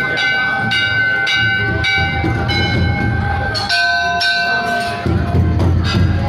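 Temple bells rung repeatedly, about two strikes a second, each strike ringing on into the next; a bell of a different pitch takes over about four seconds in. A low rumble runs underneath from about a second in.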